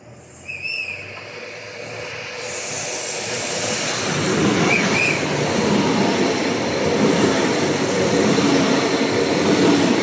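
Renfe Rodalies electric commuter train approaching and passing close at speed: the rumble and rail noise build over the first few seconds, then stay loud as the carriages go by. A couple of short high chirps sound near the start and about halfway.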